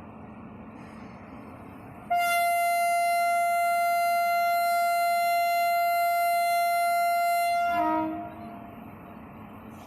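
WAP-5 electric locomotive's twin-tone air horn sounding one long steady high note for about six seconds, dropping briefly to its lower tone as it cuts off. A steady low rumble runs underneath before and after.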